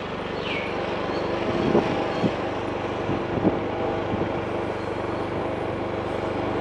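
Engine of a moving vehicle running steadily, with wind noise on the microphone and a few short knocks in the middle.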